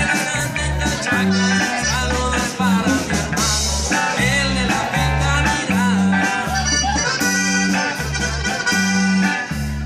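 Live norteño band playing a corrido: button accordion carrying the melody over a drum kit and a bass that alternates notes in a steady, bouncing two-beat rhythm.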